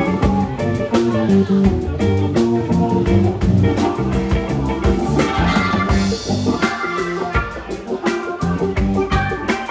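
Instrumental funk band recording: electric guitar, bass guitar and drum kit playing a steady groove.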